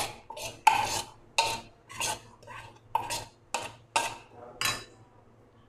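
A spoon scraping a thick marinade of mutton out of a bowl into a kadhai. There are about ten quick scrapes, roughly two a second, and they stop about five seconds in.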